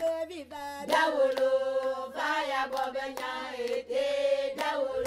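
A group of voices singing a chant, holding long notes with a slight waver, with sharp percussive strikes between them.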